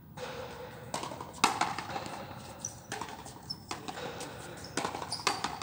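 Frontenis rally: the rubber ball smacking off racket strings, the frontón wall and the concrete floor, about half a dozen sharp cracks at irregular intervals, the loudest about a second and a half in.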